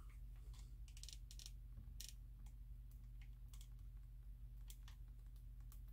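Faint, scattered small clicks and ticks of hands handling wiring and a hot glue gun, over a steady low hum.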